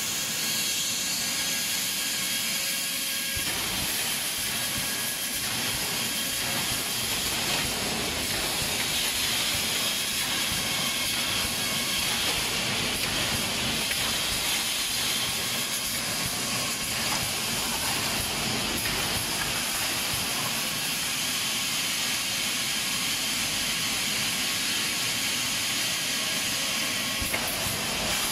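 Steady hiss and rumble of running factory machinery, even and unbroken throughout.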